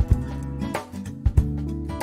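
Background music: guitar over a bass line, with a drum beat.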